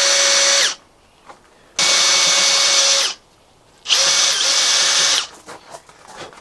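Electric drill enlarging pilot holes, run in three bursts of a steady motor whine with short pauses between. The third burst dips briefly in pitch as the bit bites. It ends with a few light clicks of handling.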